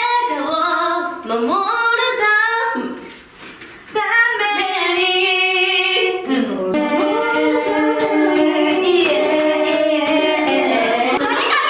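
A young woman singing a pop song from a lyric sheet, breaking off briefly about three seconds in, then holding long notes through the second half.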